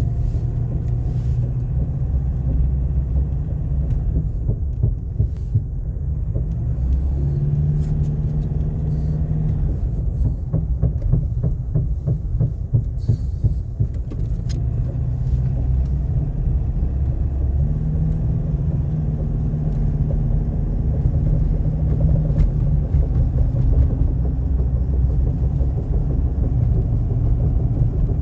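Nissan Navara D40 pickup running with a steady low rumble, broken now and then by short sharp clunks, the clunking noise the owner is showing as a fault.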